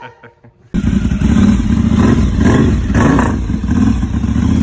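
Motorcycle engine running loudly from about a second in, with a couple of short blips of the throttle.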